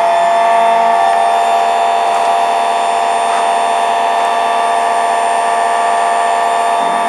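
Electric bench chainsaw sharpener's motor running with a steady whine, its grinding wheel spinning free while the chain is moved along in the clamp to the next tooth.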